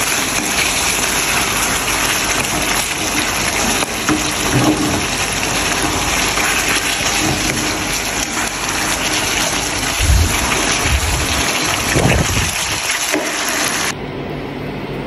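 Chicken adobo sizzling and bubbling hard in a hot pan as its sauce reduces, a steady dense hiss, with a couple of dull knocks about ten and twelve seconds in. The sizzle stops abruptly near the end.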